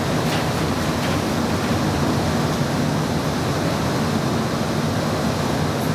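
Inside a streetcar pulling away from a stop: a steady rushing rumble from the running gear and motors, with a faint low hum under it.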